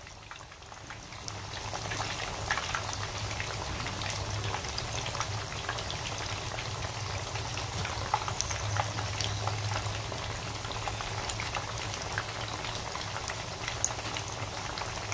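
Spanish mackerel pieces deep-frying in hot oil in a pan: a steady bubbling sizzle with many small pops and crackles, fading in over the first second or so.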